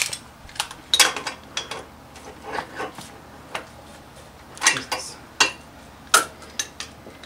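Irregular metallic clinks and clicks of a ratchet wrench and socket being worked on an engine bolt, a dozen or so sharp strikes unevenly spaced.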